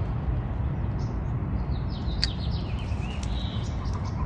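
A small bird chirping: a quick run of short, falling high notes about two seconds in and a few more just after three seconds, over a steady low outdoor rumble.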